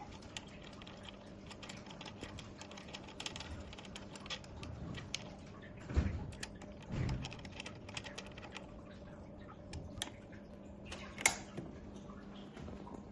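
Irregular light clicks and taps of tools and small parts being handled during headset and fork work, with two dull knocks about halfway through and a sharp click near the end.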